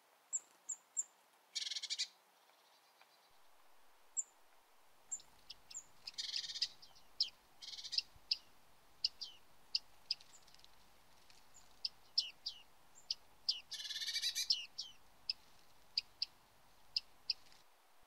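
Bearded reedlings calling: a string of short, high calls, many dipping in pitch, with three longer buzzy notes about two, six and fourteen seconds in.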